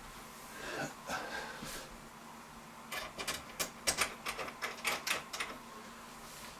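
Door lock and handle hardware being fitted together: light handling noise, then a quick, irregular run of about a dozen sharp metal clicks and rattles in the middle.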